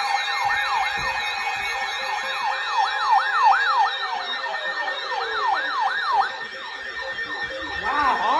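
Electronic siren yelping in quick, repeated rising-and-falling sweeps, several overlapping, over a steady tone, with a slower falling glide about halfway through.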